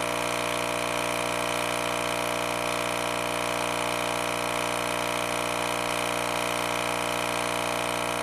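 RE Audio SX 12-inch subwoofer driven straight from the 120 V wall socket, giving a loud, unchanging mains buzz with many overtones. The woofer is being pushed hard enough that its voice coil is overheating.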